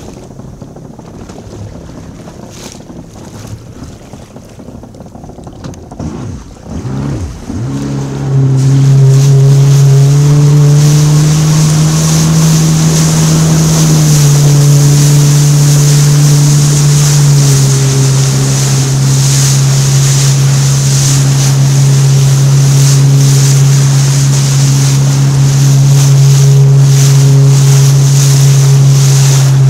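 Jet ski engine running low, then throttling up with a rising pitch about seven seconds in and running loud and steady at speed. Water spray and wind hiss over the engine, whose note drops slightly about halfway through.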